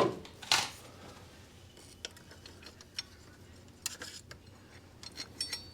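Scattered metallic clicks and clinks of hand tools on bolts and a metal bracket, with two sharper knocks in the first second.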